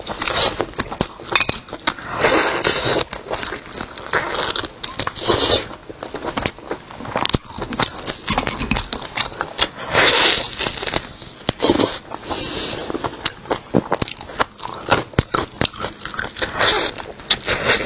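Close-miked eating sounds: biting into and chewing a large piece of crusted meat on the bone, with irregular crackles and crunches and wet mouth sounds.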